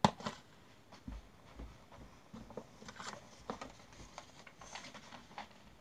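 A sharp knock, then a person's footsteps close by with light paper rustling and clicks from a paper airplane being handled.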